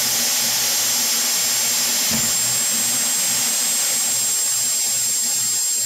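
Electric drill running steadily with a constant high whine as its twist bit bores through PVC pipe.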